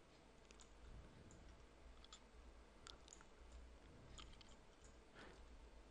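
Near silence, with a few faint, short clicks scattered irregularly through it.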